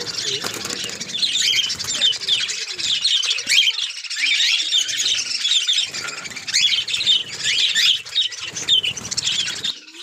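Aviary flock of budgerigars and cockatiels chattering in a dense stream of quick chirps, with wings fluttering as birds flit between perches.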